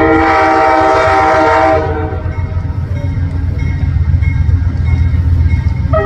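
Amtrak diesel locomotive's multi-chime air horn sounding one loud held chord that cuts off just under two seconds in. A steady low rumble of the locomotive and train follows.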